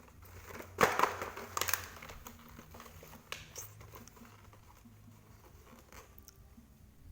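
Plastic toy packaging being crinkled and torn open by hand: two loud rustles about a second in and near the two-second mark, then softer crinkling and small clicks.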